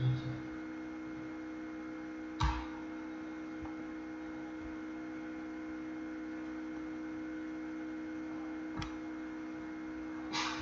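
Steady electrical mains hum with several steady tones, broken by a sharp click about two and a half seconds in, a fainter click near nine seconds, and a short noisy burst near the end.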